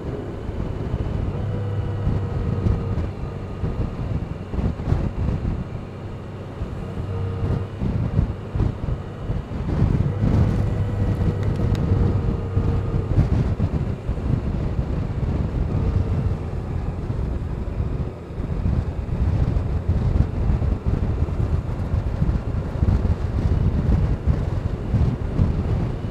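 Wind buffeting the microphone over the running of a Honda Gold Wing's flat-six engine while riding along a road, with faint steady whining tones coming and going; it gets louder about ten seconds in.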